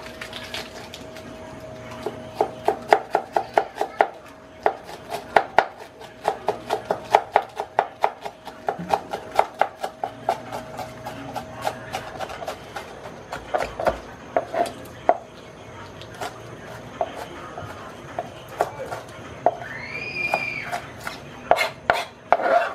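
Kitchen knife chopping herbs and onion on a plastic cutting board, in quick runs of about five strikes a second, then slower and more scattered strikes. The knife is blunt.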